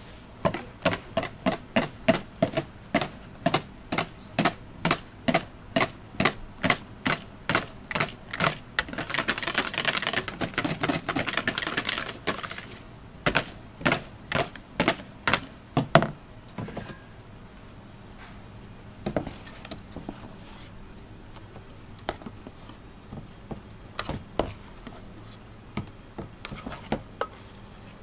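Wire balloon whisk knocking against the sides of a plastic mixing bowl as a meringue-and-cream mixture is whisked, in a steady rhythm of about two to three knocks a second. For a few seconds in the middle it turns into a fast continuous rattle of rapid whisking, then thins out to occasional light taps.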